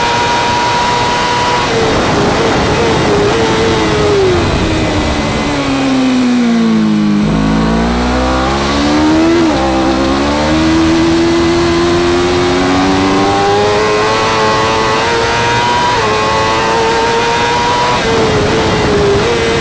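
BMW M1000RR's inline-four engine at high revs flat out, then falling in pitch through a run of downshifts under hard braking, with the wind rush fading as it slows. It then pulls back up through the revs, with short drops in pitch at each upshift in the second half, and the wind noise builds again.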